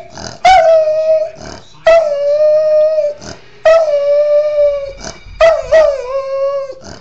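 A small white curly-coated dog howling: four drawn-out howls, each about a second long. Each one starts with a short higher yelp and then settles into a steady held note, with brief breaths in between.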